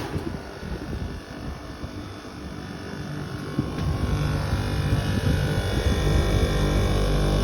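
Temperzone air conditioner's outdoor unit running: the compressor and condenser fan give a steady low hum, growing louder about four seconds in. It has started up and is running normally on its replacement circuit board.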